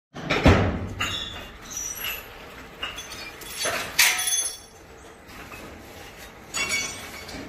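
Scattered metallic clanks and clinks, several ringing briefly, the loudest knock about half a second in and another sharp clink about four seconds in.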